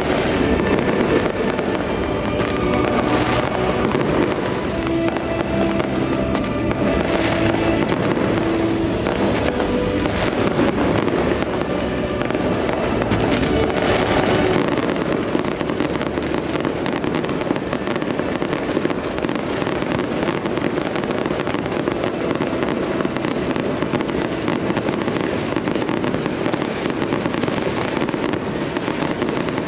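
Music for about the first half, then a fireworks display takes over: a dense, continuous barrage of bangs and crackles.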